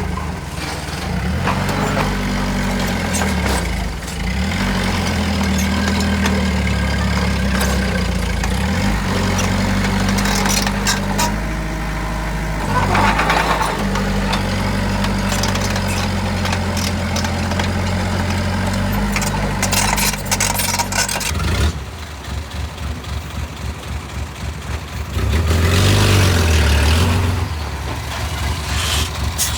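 Heavy diesel machinery running steadily. About two-thirds of the way through, the sound drops suddenly to a quieter, rapidly pulsing idle, then swells louder for a couple of seconds before easing off.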